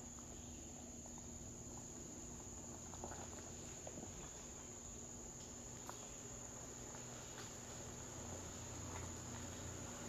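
Steady high-pitched insect chorus, with a faint low hum beneath it and a few light ticks.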